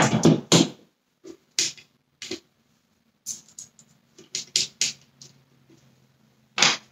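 Clicks and clatter of small hand tools, screwdriver bits and plastic parts being picked up and handled, in an irregular string of short knocks with a busier run in the middle. A faint steady low hum lies underneath.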